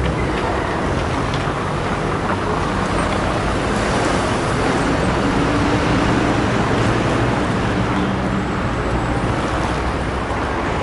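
Steady city street traffic at an intersection: cars and buses running and passing, with the low hum of engines close by.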